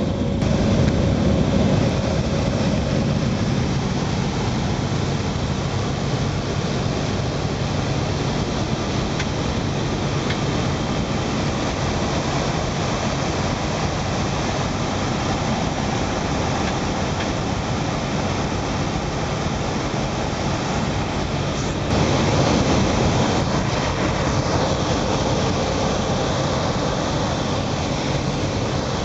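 Steady engine drone and rushing air inside a small propeller airplane's cabin as it descends to land. It turns suddenly louder about three quarters of the way through.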